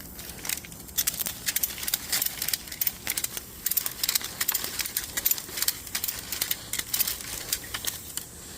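Dry buckthorn sticks crackling and snapping in quick irregular clusters as a ratchet strap squeezes the bundle tight, with some branches breaking under the pressure.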